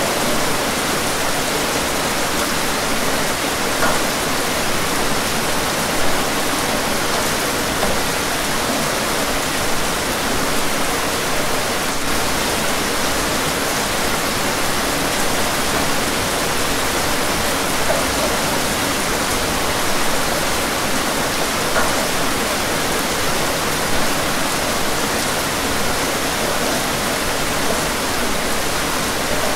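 Steady rain: an even hiss with a few slightly louder drop taps now and then.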